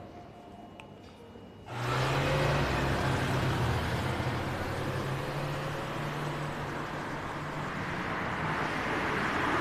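Cars driving along a street: steady engine hum and tyre noise that come in abruptly about two seconds in, growing a little louder near the end as a car draws closer.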